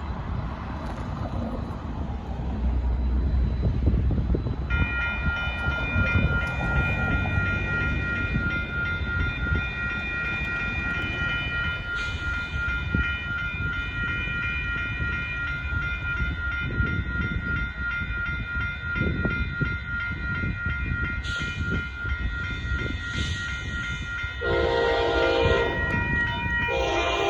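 Amtrak passenger locomotive's horn blowing one long unbroken blast of a multi-note chord, about 5 seconds in and held to the end, over the low rumble of the approaching train. About three seconds before the end a lower, louder set of notes joins the chord.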